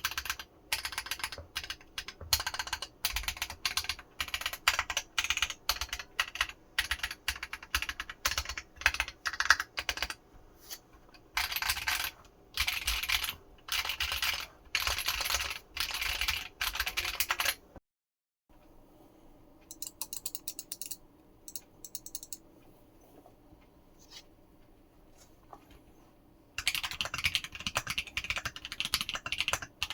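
Typing on a 60% mechanical keyboard with a 1upKeyboards Pi60 PCB: fast runs of sharp key clacks in bursts. Past the middle the sound cuts out for a moment, then only scattered, quieter clicks follow. Steady fast typing resumes near the end, likely with the board in a different case.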